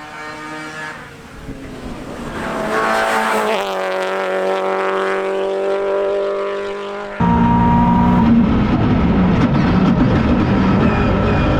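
Toyota GT86 rally car's FA20 flat-four engine under hard driving: the note falls away, climbs again about two and a half seconds in and holds a steady high pitch, then jumps suddenly to a louder, rougher engine and road noise about seven seconds in.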